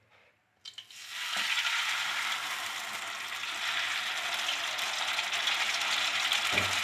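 Marinated chicken drumsticks sizzling steadily in hot oil in a nonstick wok, starting about a second in after a couple of soft clicks as the pieces go into the pan.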